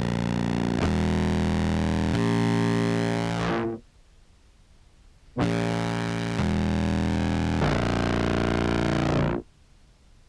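Contrabass clarinet samples played through an OBNE Float filter pedal and effects chain: two long, low held notes that step in pitch, each cutting off abruptly, with about a second and a half of silence between them.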